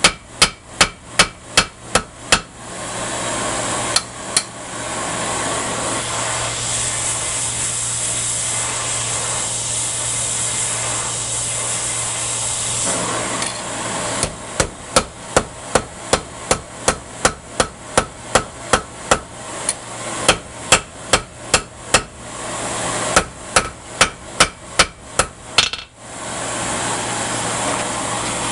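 Hand hammer forging a hot bronze bar on a steel anvil: rounds of ringing blows about three a second, broken by long stretches of a steady rushing noise with a low hum.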